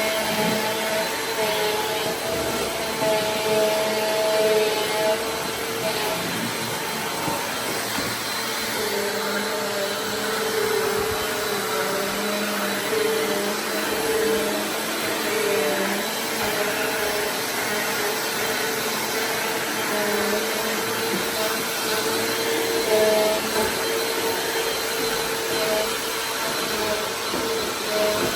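Vacuum cleaner running steadily: a continuous motor whine and air rush, with its pitch wavering slightly.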